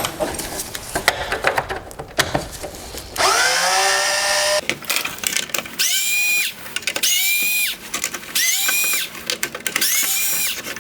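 Power driver with a T20 Torx bit backing screws out of a headlight housing. There are clicks and knocks of handling first, then a longer run whose pitch rises as it spins up, then a string of short runs of about half a second each, about one a second.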